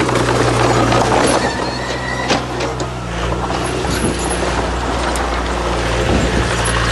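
Heavy diesel earthmoving machinery running steadily under load, its engine note changing about three seconds in, with a single sharp knock a little past two seconds.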